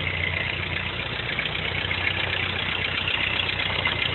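Vintage Ford 8N tractor's four-cylinder engine idling steadily.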